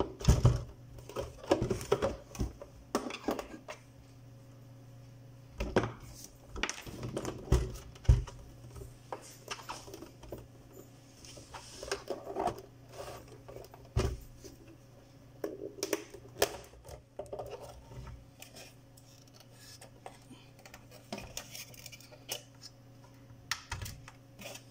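The case of a Biosys BPM-200 pulse oximeter being handled and its cover worked off and lifted away: irregular knocks, clicks and scrapes of the casing, with a faint low steady hum underneath.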